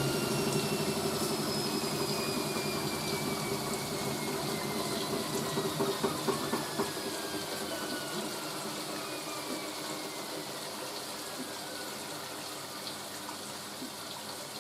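Hoover A3060 washing machine taking in water for its rinse: a steady rush of water through the inlet, with some splashing about halfway and a slow fade as the tub fills.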